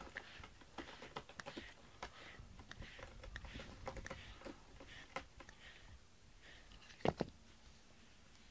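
Cat rubbing its mouth and cheek against the stiff bristles of a plastic spiky brush, giving a quiet run of irregular scratchy clicks, with one sharper click about seven seconds in.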